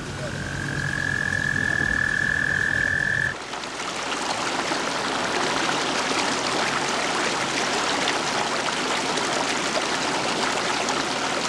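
Frogs calling at a pond: one long steady trill for about the first three seconds, then, after a cut, a dense chorus of many frogs calling together.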